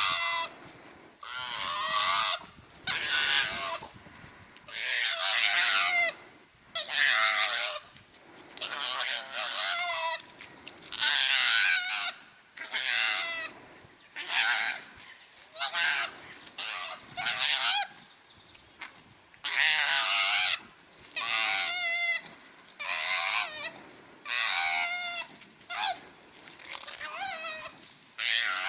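Repeated loud animal calls, one every second or so, each short with a wavering pitch.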